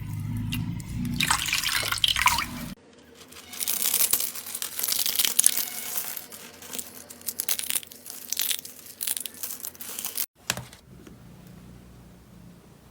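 Slime being squeezed and poked by hand: wet squishing with dense sticky clicks and pops. It comes in separate clips that cut off suddenly about three seconds in and again about ten seconds in, and the last clip is quieter.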